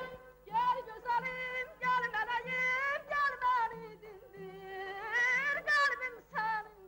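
A woman sings solo in Azerbaijani folk style, her voice wavering in quick trill-like ornaments across several phrases. The accompanying folk-instrument ensemble drops out at the start and leaves only a soft low beat underneath.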